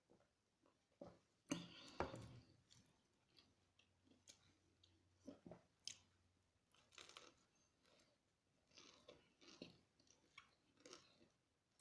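A person chewing and biting crispy food close to the microphone, with wet, crackly crunches, the loudest a cluster of crunchy bites about a second and a half in.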